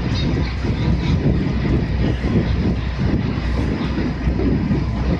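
Passenger ferry under way: the steady low drone of the ship's engines, with an uneven rumble over it.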